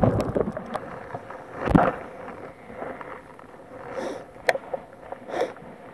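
Wind and heavy rain on the camera's microphone: a steady rushing noise with a strong gust about two seconds in and two sharp taps later on.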